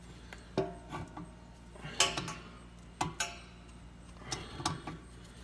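Metal plumbing parts and tools being handled: a series of light metallic clinks and knocks, some ringing briefly, about two seconds in and again about three seconds in, with softer knocks near the end.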